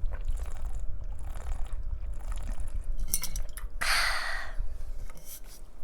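Close-miked drinking from a glass of lemon water: a few light glass clicks and a noisy sip about four seconds in.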